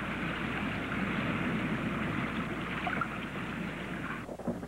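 Small motorboat running across open water: a steady rush of motor and water noise that cuts off abruptly near the end.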